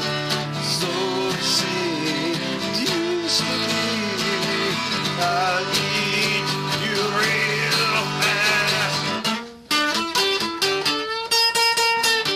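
Epiphone acoustic guitar strummed under a man's singing voice. About nine seconds in the chords stop briefly and a guitar solo of single plucked notes begins.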